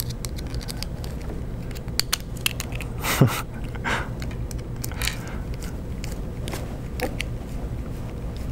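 Small screwdriver driving a thread-forming plastite screw into 3D-printed plastic parts: scattered clicks and a few short scraping crunches about halfway through, over a low steady hum.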